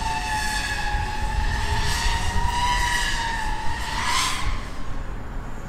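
Five-inch FPV quadcopter's four brushless motors (T-Motor MCK 2207.5, 1910KV) with tri-blade props whining in flight. The pitch drifts up and down with the throttle, rises briefly about four seconds in, then eases off near the end.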